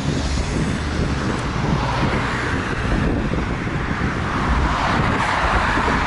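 Road traffic: cars passing on a nearby road, their tyre noise swelling about two seconds in and again near the end, over a steady low rumble.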